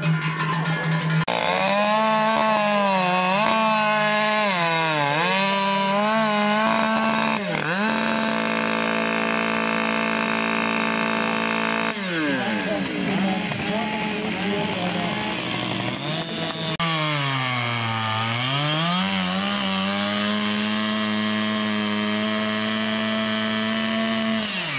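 Two-stroke chainsaw running at high revs, its engine pitch dipping and recovering again and again as the chain is loaded in the wood. It holds steady at full throttle for a few seconds in the middle, and near the end it sags deeply and climbs back.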